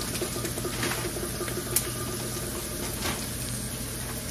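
Onions and fried-chicken crumbs sizzling gently in leftover grease in a stainless skillet, with a fine steady crackle and a steady low hum underneath.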